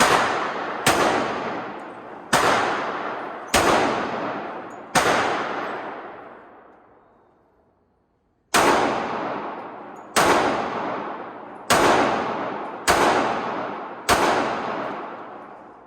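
Ten single pistol shots from a .45 ACP 1911, fired slowly in two strings of five with a pause between them, each shot followed by a long echoing decay.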